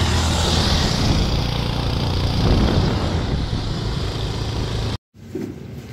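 Wind rushing over the microphone and a motorcycle engine running while riding, cutting off suddenly near the end.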